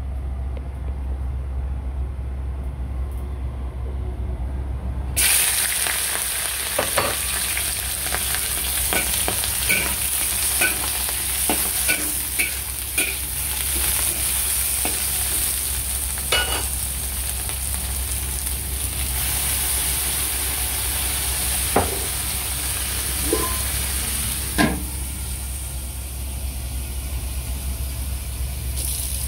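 Whole shell-on shrimp sizzling in a hot wok, the hiss starting suddenly about five seconds in, while a metal spatula scrapes and clacks against the wok as they are stir-fried. A steady low hum runs underneath throughout.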